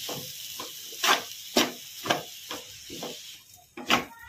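Metal spoon stirring and turning poha in a metal pan, knocking and scraping against the pan about twice a second, over a faint sizzle.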